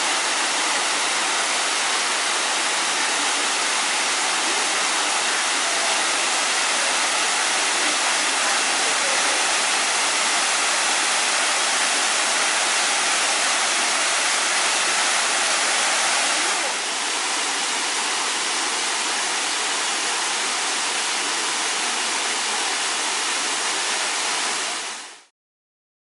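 Waterfall pouring through a hole in a rock overhang and splashing into a pool below: a steady rush of falling water. It drops a little in level about two-thirds of the way in and fades out near the end.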